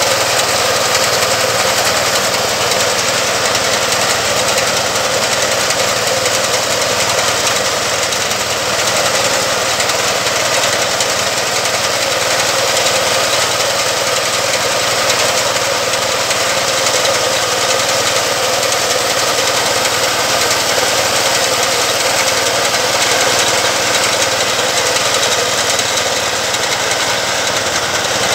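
Engine of a small crop-cutting reaper running steadily at working speed.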